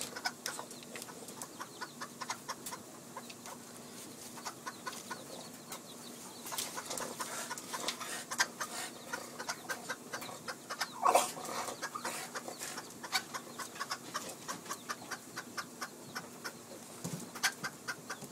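Hen clucking over and over in short, quick clucks while guarding her chicks, with one louder sharp sound about eleven seconds in.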